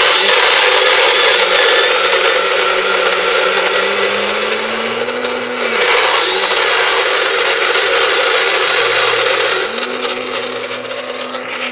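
Battery-powered small motor driving a homemade gearbox of old plastic toy gears, running with a loud, steady whir while a finger grips the output shaft and cannot stop it: the gearbox has high torque. The sound gets a little quieter about ten seconds in, when the shaft is let go.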